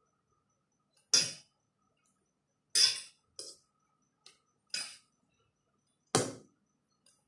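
Metal forks clinking and scraping against stainless steel bowls while noodles are eaten: about six short, sharp clinks at irregular intervals.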